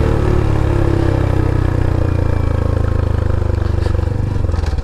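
2021 Honda Trail 125's single-cylinder four-stroke engine running with the spark arrestor removed from its exhaust tip, its pitch falling gradually as the bike slows down.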